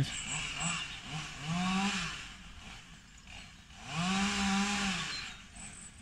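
Distant chainsaw revved twice, its pitch swelling up and falling back each time.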